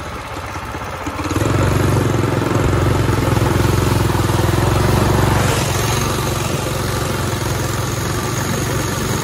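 Small single-cylinder mini bike engine pulled up to a higher throttle about a second in, running steadily, then easing back slightly after about five seconds, with the tyres splashing through muddy puddle water.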